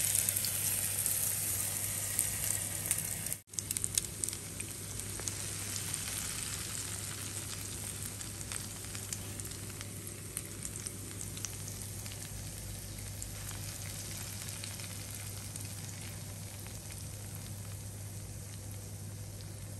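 Grated potato and onion pancake batter frying in hot oil in a pan, a steady sizzle with scattered crackles. It is loudest at the start, just after the batter goes in, and settles to an even sizzle after a brief dropout about three seconds in.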